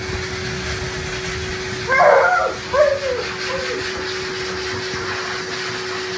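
High-velocity dog grooming dryer blowing steadily, with a constant motor whine. About two seconds in, a voice-like cry with bending pitch rises over it in a few short pieces for under two seconds.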